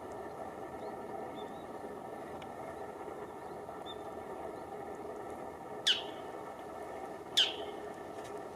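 Bull-headed shrike giving two sharp, clear calls about a second and a half apart, each a quick, steeply falling note, over steady low background noise.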